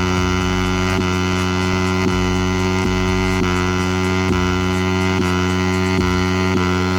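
Background music: a held, droning chord with a faint beat about twice a second.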